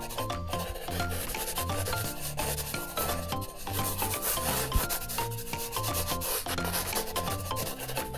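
Pink felt-tip marker scratching back and forth on paper as an area is coloured in, over background music with a stepping bass line.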